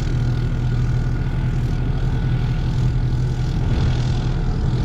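Off-road vehicle's engine running hard and steady as it climbs a steep sand hill, its tyres clawing for grip in loose sand.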